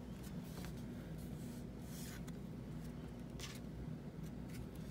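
Trading cards being handled: a few soft, short scrapes and flicks of card stock as the front card of a stack is slid off and moved to the back.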